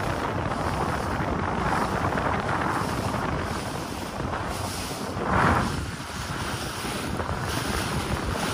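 Wind buffeting the microphone on a moving motorboat, over a steady low rumble of the engine and water rushing past the hull. A brief louder surge comes about five seconds in.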